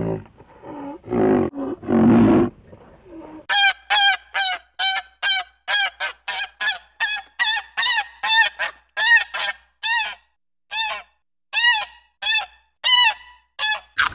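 A few deep animal grunts in the first three seconds, then a rapid run of short nasal waterfowl honks, about two a second, until the end.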